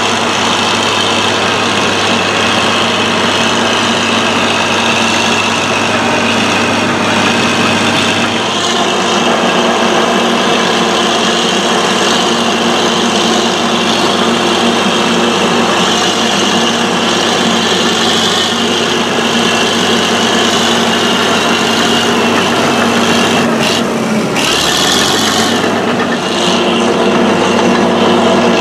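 Fiat Allis AD14-C crawler dozer's diesel engine running steadily under load as the blade pushes soil over hard ground. About 24 seconds in the engine note dips and drops in pitch briefly, with a short hiss, then picks back up.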